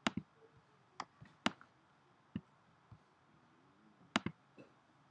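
Computer mouse being clicked: about nine short, sharp clicks at an irregular pace, several in quick pairs like double-clicks.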